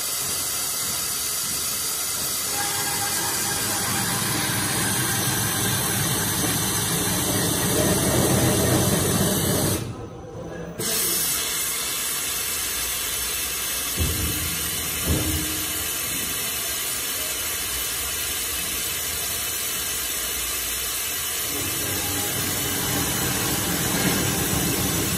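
ABS core slitting machine running, its circular blade cutting a spinning plastic core tube into rings, with a steady hiss. The sound briefly drops away near the middle, and two short knocks come a few seconds later.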